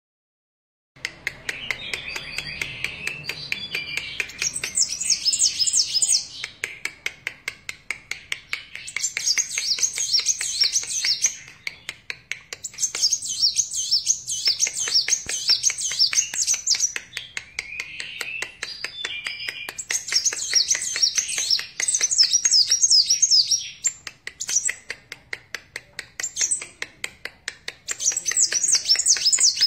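A sunbird (the 'kolibri wulung' of Indonesian bird-keepers) singing vigorously: bursts of rapid, high twittering trills a few seconds long, alternating with lower warbling passages, starting about a second in.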